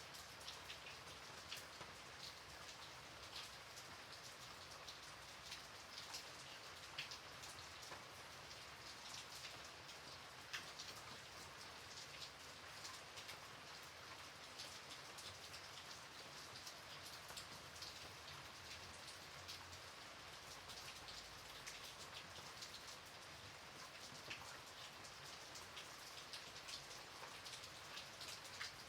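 Light rain falling steadily, with many individual drops ticking sharply on surfaces over a soft, even patter.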